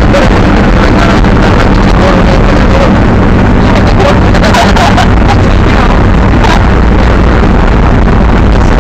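Monster truck engine running steadily as the truck is driven, loud and heard from inside the cab.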